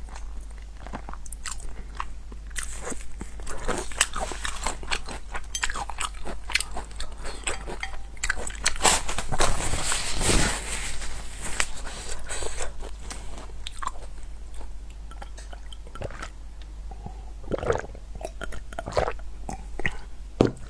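A person biting and chewing crunchy food close to the microphone: a run of irregular crunches, thickest about halfway through.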